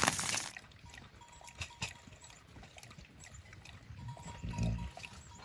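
Quiet, with scattered light knocks and a short low animal call from livestock about four and a half seconds in.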